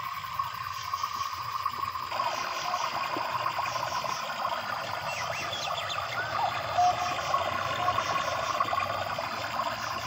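Built-in nature soundtrack of a lighted motion waterfall picture: flowing water with many short chirps and a steady cricket-like trill over it, played through the picture's small speaker. The water noise grows fuller about two seconds in.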